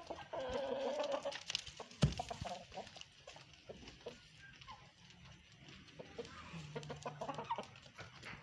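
Domestic chickens, a rooster and a hen, clucking softly, with a sharp knock about two seconds in.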